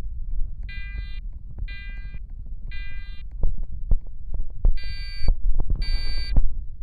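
Fire alarm horn sounding the temporal-three evacuation pattern: three half-second electronic horn blasts a second apart, a pause, then three more, louder. A low rumble and scattered clicks lie under it.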